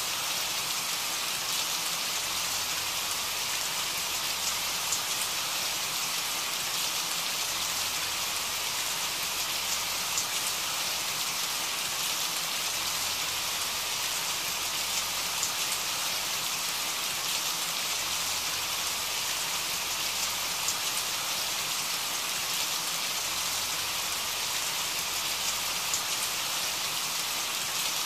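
Steady rain: an even hiss with faint, scattered drop ticks, unchanging throughout.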